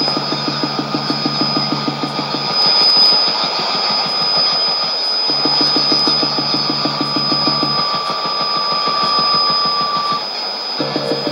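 Shortwave test transmission from the Nauen transmitter on 5990 kHz, heard through a receiver: a low, rasping buzz in bursts of about two and a half seconds with pauses between. It sits over band hiss, with a steady high whistle throughout.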